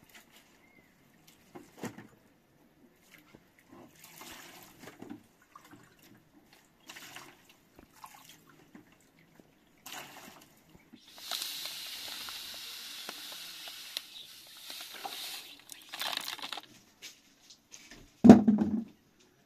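Water poured from a plastic jug in a steady stream for about four seconds, amid light rustling and small knocks; near the end a short, loud dull thud.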